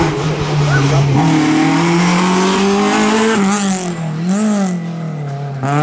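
Rally car engine revving hard as it drives past. The note climbs over the first three seconds, dips and picks up again about four seconds in, and falls away near the end, with a few short hissing bursts on top.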